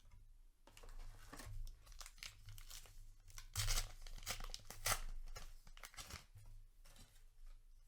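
A paper booster-pack wrapper of a Flesh and Blood Outsiders pack being torn open and crinkled by hand, in irregular crackly bursts with the two loudest tears about three and a half and five seconds in.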